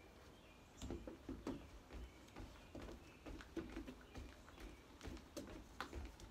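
Feet landing and stepping on a wooden deck during ski jumps and lunges: faint, uneven thumps and scuffs, about two or three a second, starting about a second in.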